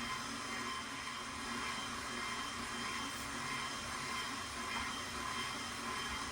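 KitchenAid stand mixer motor running steadily, driving its meat grinder attachment to stuff sausage: an even motor whine.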